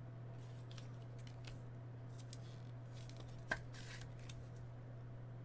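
A trading card being fitted by hand into a clear plastic card holder: faint plastic rustling and ticks, with one sharp click about three and a half seconds in, over a steady low hum.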